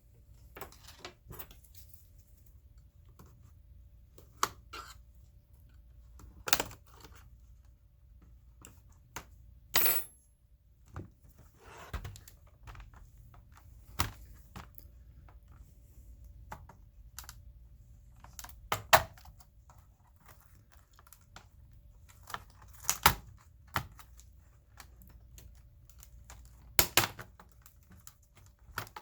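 Scattered clicks, taps and knocks of an ASUS X540S laptop's plastic case and small parts being handled and taken apart, a sharp one every few seconds.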